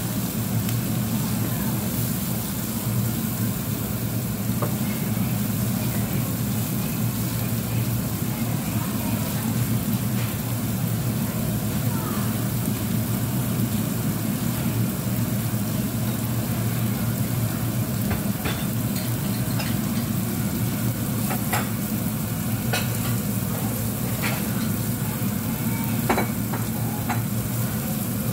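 Diced ham and mixed vegetables sizzling in oil in a nonstick frying pan as a silicone spatula stirs them, with a few sharp taps and scrapes of the spatula against the pan in the second half. A steady low hum runs underneath.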